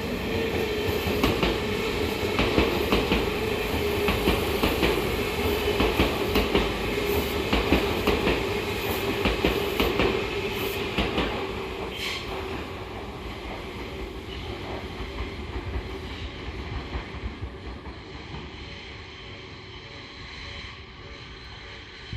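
Tobu Skytree Line electric train passing slowly through a station: wheels clacking over rail joints in an uneven rhythm over a steady hum. It fades away over the second half as the train moves off.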